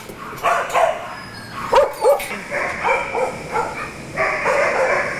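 Dogs barking in animal-shelter kennels. There are a few separate sharp barks at first, then the barks overlap into a near-continuous din from about halfway in.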